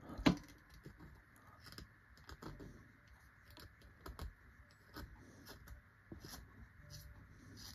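X-Acto hobby knife shaving small cuts off a drawing pencil's point: faint, irregular scraping ticks, with one louder click near the start.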